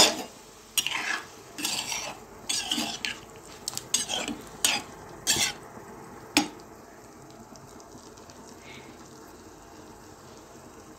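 A metal spoon stirring paneer cubes in water in a pan: a sharp clink right at the start, then a run of scrapes and knocks against the pan over the first six seconds or so, after which only a faint steady hiss remains.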